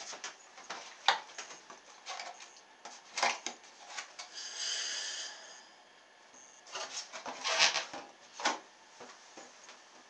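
Handling noises of a plastic milk-carton toy boat being lifted out of bath water and readied: a few scattered knocks and clatters, with a short hissing rush about four and a half seconds in.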